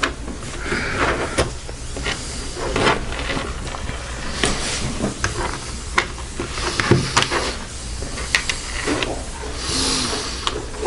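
Scattered small clicks and rubbing as .177 pellets are pushed by hand into the link belt of a Sig Sauer MPX pellet pistol magazine, with short bursts of rustling hiss in between.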